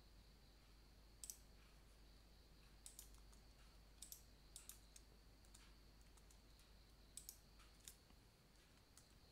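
Faint, sparse clicks of a computer keyboard and mouse as short entries are typed into form fields, a few keystrokes at a time with pauses between, over a faint steady high tone and low hum.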